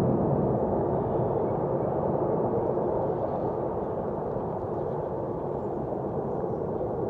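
Jet engine rumble from a formation of Saab JAS 39 Gripen fighters passing overhead at a distance, a steady low rush that slowly fades as they fly off.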